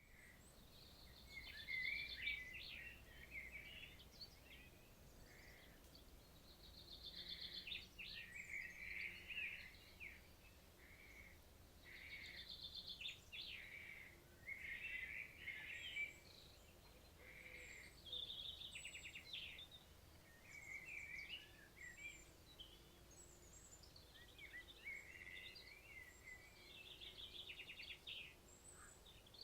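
Songbirds singing in short song phrases that recur every few seconds, several of them opening with a fast trill followed by warbling notes, over a faint steady forest background.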